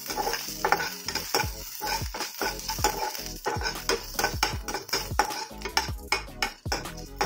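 Chopped onions, garlic, green chillies and curry leaves sizzling in hot oil in a kadhai over a medium-to-high flame. A slotted metal spatula scrapes and knocks against the pan over and over as they are stirred.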